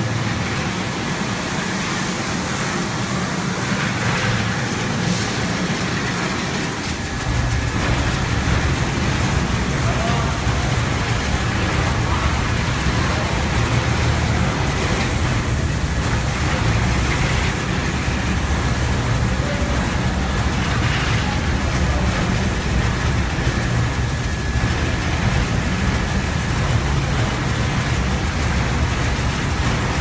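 Automatic carpet washing machine running over a wet carpet: a dense, loud wash of water and machine noise. About seven seconds in, a deep, steady low hum comes in and holds.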